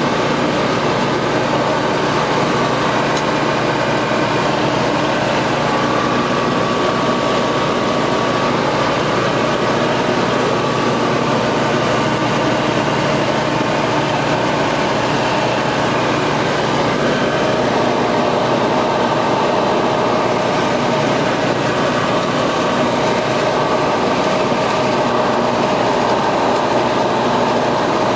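Ultralight aircraft's piston engine and propeller running steadily at cruise, heard from inside the cockpit as an even hum with several steady tones.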